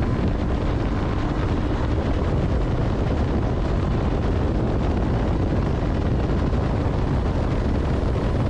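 Heavy wind rush buffeting the microphone of a Yamaha R15 V2 motorcycle at highway speed, with the bike's single-cylinder engine running under it, steady throughout.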